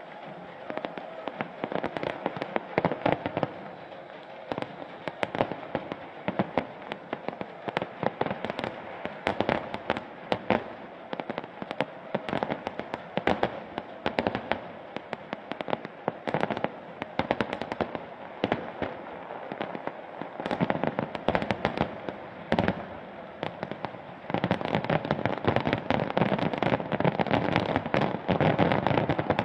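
Fireworks display: many rapid bangs and crackling bursts going off one after another, growing denser and louder in the last few seconds.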